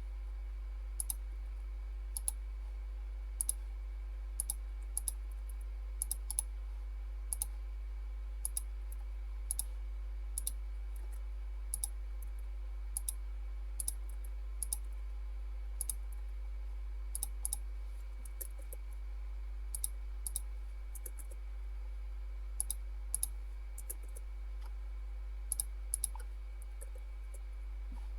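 Sharp clicks of computer input come about once a second, several in quick pairs like double-clicks, over a steady low hum.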